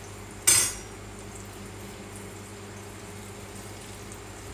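Cheese-filled potato croquettes deep-frying in a skillet of hot oil: a steady bubbling sizzle. A brief sharp clatter about half a second in is the loudest sound.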